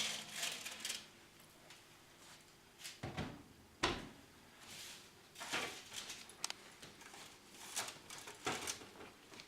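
Oven door being opened and a hot baking tray of cookies taken out with an oven mitt: a few scattered brushing noises, a dull thud about three seconds in and a sharper knock just after.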